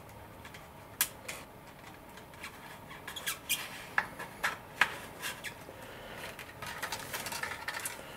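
Small sharp clicks and taps as a model glider's tail boom, with its aluminum sleeve and pushrods, is pushed into the fuselage pod, with scratchy rubbing of the parts near the end.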